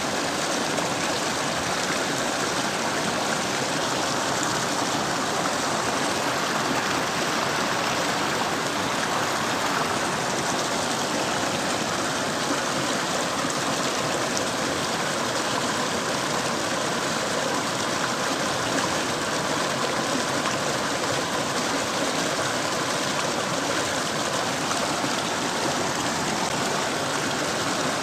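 Mountain stream flowing over rocks: a steady rushing of water with gurgling, unchanging throughout.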